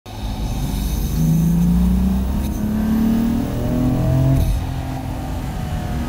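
BMW M4's S55 twin-turbo inline-six heard from inside the cabin, accelerating with its pitch rising, then dropping with an upshift a little over four seconds in.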